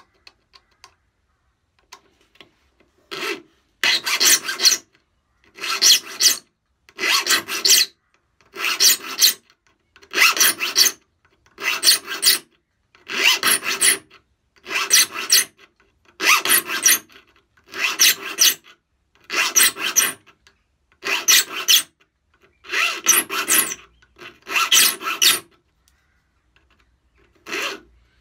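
Metal saw file rasping across a hand saw's steel teeth, sharpening them to a rip-saw pattern. Even strokes come about once every second and a half, starting a few seconds in, with a short pause near the end.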